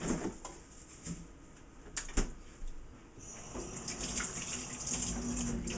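A couple of sharp knocks, then a tap running with a steady hiss from about three seconds in.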